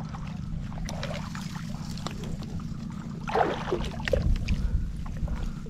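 Steady low rumble of wind on the microphone, with water sloshing and reed stems brushing as a hand moves among them in shallow marsh water. The splashing grows louder about three and a half seconds in.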